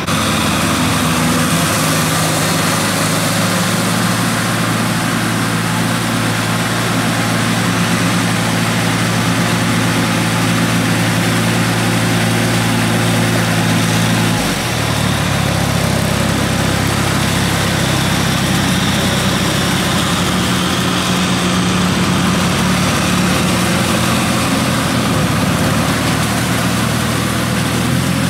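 Tractor diesel engines running steadily under load in a flooded paddy: first a Kubota tractor pulling a tiller through the mud, then, about halfway through, a different engine note from an older small tractor on cage wheels dragging a levelling board.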